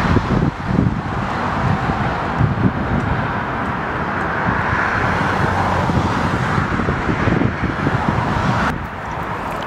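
Jet engine noise from a large twin-engine airliner passing low overhead on approach with its gear down, mixed with gusty wind buffeting the microphone. The engine hiss swells toward the middle and drops off suddenly near the end.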